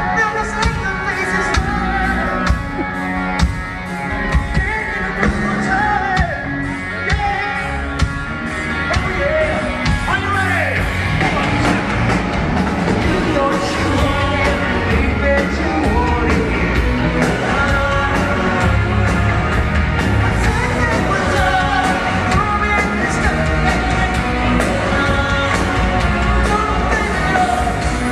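Live hard rock band playing over a PA, with drums and a vocalist singing and yelling; the singing comes in strongly about ten seconds in.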